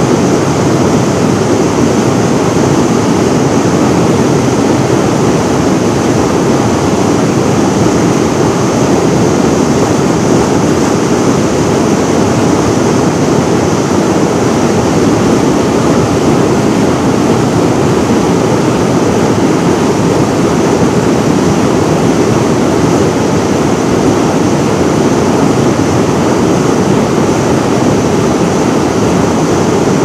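Fast-flowing river rushing over rocks in white-water rapids: a loud, steady rush of water.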